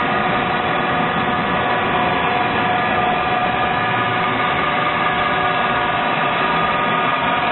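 A machine in a metal workshop running steadily, with a constant whine of several pitches over an even rushing noise and no change in speed.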